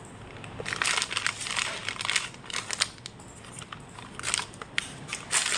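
Packaging crinkling and rustling as it is handled, in two spells of dense crackle.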